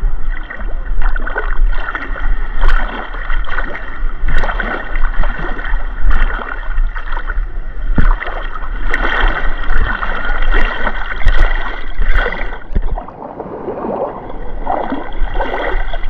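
Seawater splashing and sloshing close to the microphone in irregular strokes, as someone wades and moves in shallow sea water. It eases off briefly a little after the middle.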